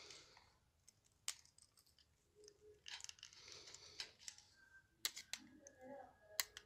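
Faint scattered clicks and light scraping of a screwdriver and wire ends at the screw terminals of a plastic push-button station as a control wire is fastened, over near silence.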